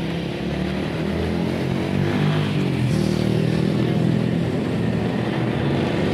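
A vehicle engine running steadily, growing a little louder about two seconds in.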